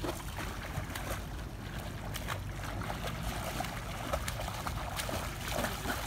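Light, irregular splashing of a young child swimming across a pool, her arms and kicking feet breaking the surface, over a steady low rumble.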